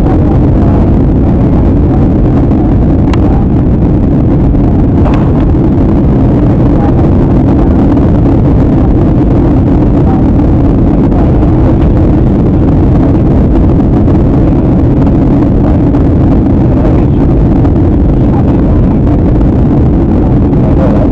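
Steady, loud cabin noise of a jet airliner in flight: engine and airflow noise with a deep hum.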